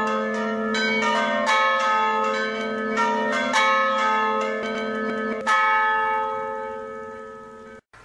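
Several church bells rung together in quick, irregular strikes. The last strike, about five and a half seconds in, is left to ring and fade, and the ringing cuts off just before the end.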